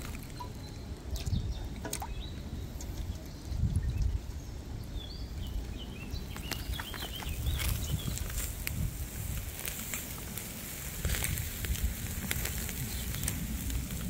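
Outdoor background with a low, uneven rumble and scattered sharp clicks and small wet handling noises as pieces of marinated meat are lifted from a metal pot and laid on a wire grill basket. A few short high chirps come about halfway through.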